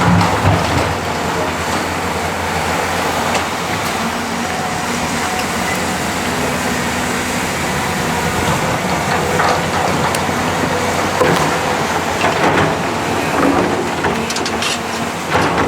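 Heavy diesel construction machinery running steadily under load, with scattered knocks and clanks in the second half.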